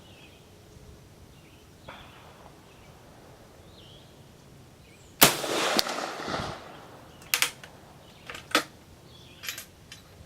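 A single shot from a Springfield Model 1866 Second Allin trapdoor rifle firing a smokeless .50-70 load, one sharp loud report about halfway through with a ringing tail of about a second and a half. A few sharp clicks follow as the breech is opened and the case extracted.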